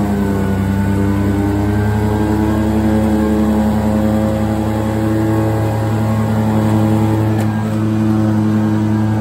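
Kubota ZD1211 zero-turn mower's three-cylinder diesel engine running steadily at working speed while the deck cuts grass. A brief click about seven and a half seconds in.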